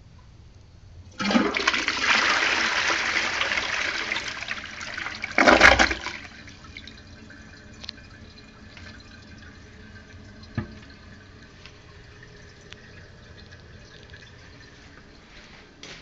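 Sterling dual-flush toilet flushing: a sudden rush of water about a second in, a louder short surge at about five and a half seconds, then a much quieter steady hiss of water.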